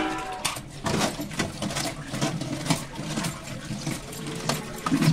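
Tap water running into a plastic colander while hands rub and stir a batch of small, round katarua mushrooms, which clatter against each other and the colander in a quick, uneven run of clicks.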